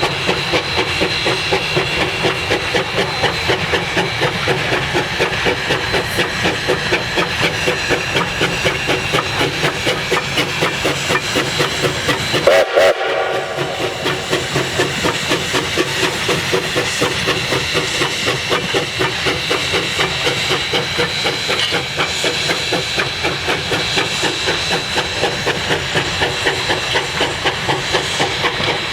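Narrow-gauge ten-wheeler (4-6-0) steam locomotive No. 152 working under way, its exhaust chuffing in a quick, steady beat, about three a second, with the clatter of the train's wheels on the rails. There is a brief break about halfway.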